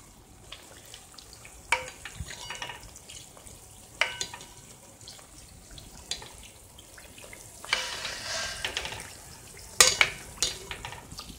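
Satpura pastries deep-frying in vanaspati ghee over low heat in a kadhai, a low sizzle throughout, with a metal ladle clinking against the pan four times as ghee is spooned over them. The sizzling swells for about a second some eight seconds in.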